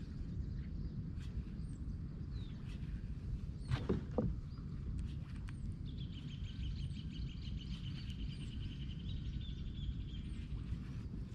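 Outdoor ambience on calm water: a steady low rumble throughout, a brief louder sweep about four seconds in, and scattered short high chirps. From about six to ten seconds in, a rapid high-pitched trill of many evenly spaced pulses.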